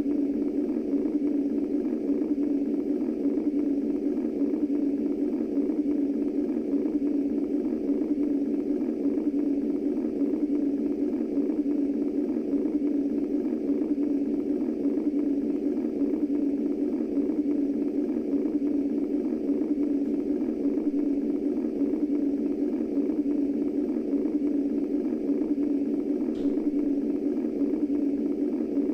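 Womb-style white noise: a steady, low, muffled whooshing hiss with no beat or change in level.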